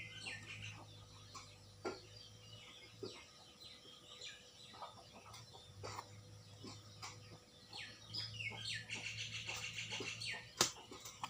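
Small birds chirping and twittering, with a fast run of repeated notes near the end. Underneath there is a steady low hum and scattered clicks, one sharper click about ten and a half seconds in.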